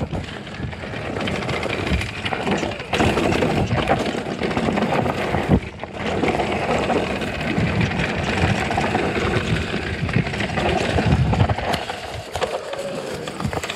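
Santa Cruz Heckler electric mountain bike riding down a rocky dirt singletrack: tyres crunching over dirt and stones, with continual knocks and rattles from the bike over the bumps.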